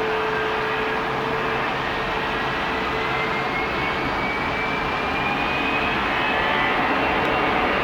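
Jet airliner engines running with a steady rush, and a high whine that rises slowly in pitch.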